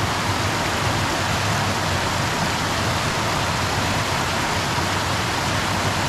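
Water cascading into a natural rock pool below a small waterfall: a steady, even rush.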